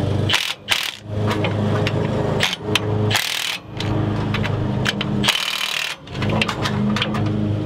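Cordless power wrench spinning the rear-axle U-bolt nuts down on a 21 mm socket, clamping the axle to the leaf spring. It runs in several bursts of a second or two, with short pauses between them.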